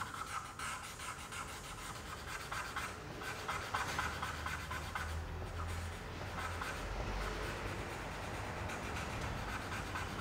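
A fine paintbrush scratching and rubbing on paper in steady strokes.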